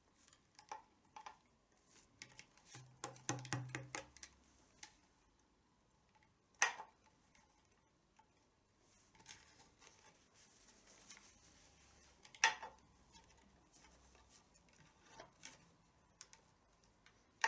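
Scattered clicks, knocks and rubbing from a tabla's leather badhi straps being pulled tight with a hook, strap after strap, to raise the tension on the new skin. Two sharper knocks stand out, about six and twelve seconds in.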